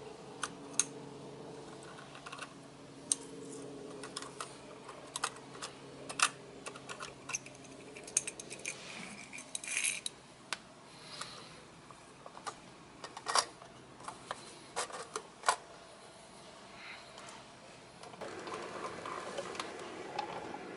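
Small plastic trash carts being handled by hand, tipped into the hopper of a diecast model garbage truck and set down on concrete: irregular light plastic clicks and taps, with a short scrape about ten seconds in.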